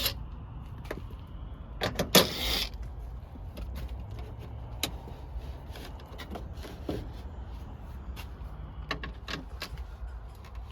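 Scattered clicks and knocks of hand tools working on a car's body panels to remove the rear window, with one louder scraping rustle about two seconds in, over a steady low rumble.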